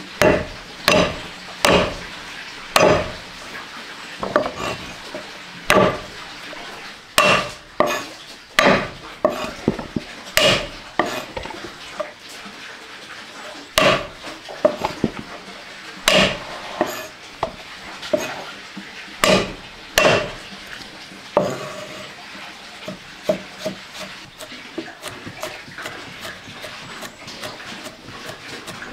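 Large kitchen knife chopping fresh turmeric root on a wooden chopping board: sharp, unevenly spaced knocks of the blade against the wood, then from about two-thirds of the way through a lighter, faster tapping as the root is minced fine.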